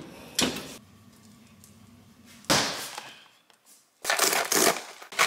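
Crinkling and rustling of a plastic food packet being handled. Two short sharp rustles come first, then from about four seconds in a continuous crackly crinkle.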